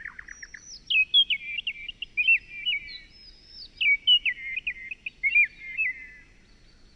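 A songbird singing: a quick trill at the start, then a long, varied run of whistled notes that slide up and down, ending about a second before the close.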